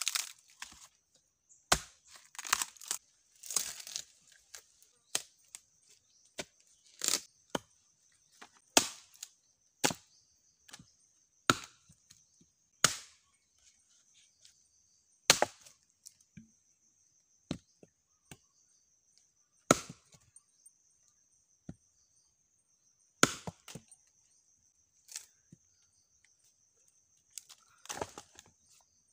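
Axe chopping into a freshly cut log: sharp wooden chops at an irregular pace, roughly one to two seconds apart. A steady faint high-pitched whine runs underneath.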